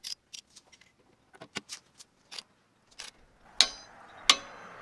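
Metal hand tools clinking: a scattering of light irregular clicks as a socket, adapters and Allen wrench are handled at a steel hitch coupler, then two sharper ringing metal clinks near the end. A faint steady hiss sets in alongside the last clinks.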